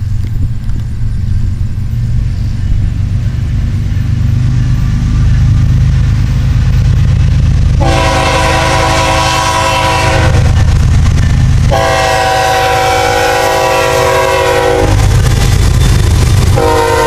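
Diesel freight locomotives approaching with a low rumble that grows louder, then sounding a multi-chime air horn. The horn gives two long blasts and the start of a short third, the opening of the long-long-short-long grade-crossing signal. The lead units' diesels rumble loudly as they pass close by near the end.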